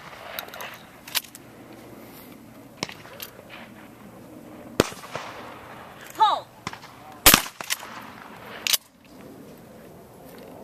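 Shotgun shots at a trap field: a short shouted call about six seconds in, then a loud shotgun blast about a second later and another about a second and a half after that. Fainter shots come earlier.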